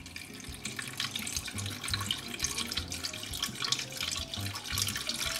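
Chicken broth poured gently from a carton in a steady stream into the inner pot of an 8-quart electric pressure cooker, splashing over raw chicken breasts.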